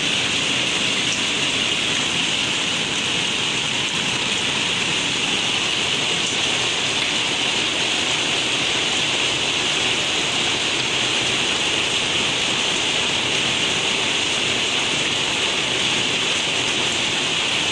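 Hail and heavy rain falling steadily on a conservatory roof and glass, heard from inside the conservatory.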